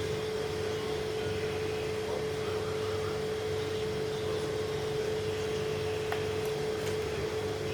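A machine running steadily: an even hum with one constant mid-pitched tone over a low rumble.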